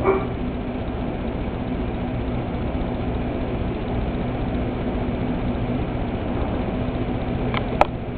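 A steady low machine hum with hiss, like a fan or an idling engine. A short, sharp pitched sound comes right at the start, and two clicks come near the end.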